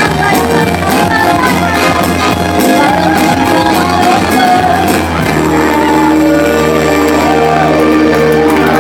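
A woman singing live into a microphone over loud pop backing music with a steady beat; about five seconds in, the accompaniment settles into long held chords under her voice.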